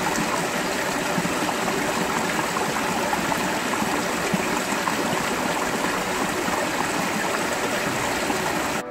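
A small stream cascading over a mossy rock ledge into a pool: a steady splashing flow of water that cuts off abruptly at the very end.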